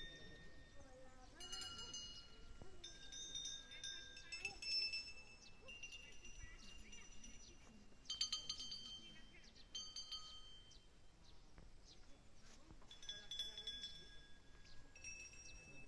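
Brass temple bells ringing faintly, struck one after another at several separate moments, each ring a cluster of high clear tones that fades slowly.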